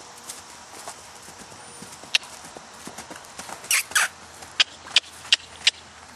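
Horse's hooves striking hard ground: sharp, scattered clip-clops, then an even run of about three a second near the end.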